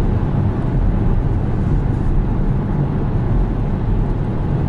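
Steady low rumble of road and tyre noise, with the engine underneath, inside the cabin of a 2020 Kia Soul Booster cruising at highway speed with cruise control engaged.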